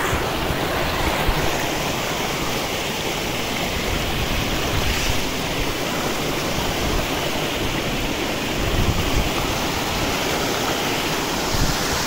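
Steady rush and splash of water falling down a small waterfall.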